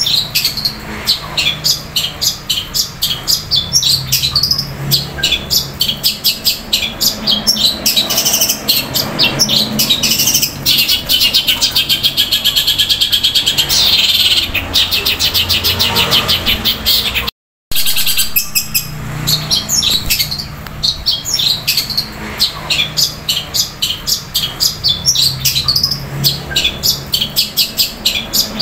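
Long-tailed shrike (cendet) singing loudly and at length: rapid, high chattering chirps in the style of fighting Eurasian tree sparrows, with a fast trilled roll in the middle. The sound drops out for a split second about two-thirds of the way through.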